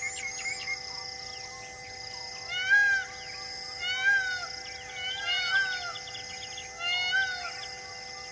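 An animal calls loudly four times over a few seconds, each a short arching cry that rises and falls in pitch. Behind it runs a steady humming drone with high, fast chirping.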